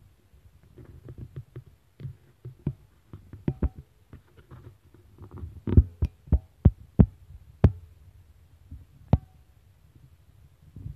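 A string of irregular sharp knocks and clicks, loudest and closest together about six to eight seconds in, over a low steady rumble.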